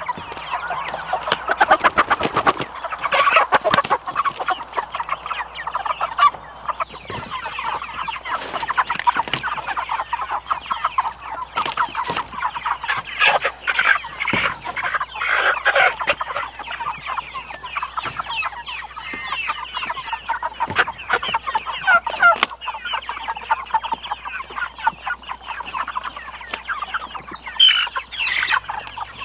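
A flock of meat chickens clucking and squawking continuously as they are caught and handled. Scattered sharp knocks run through it.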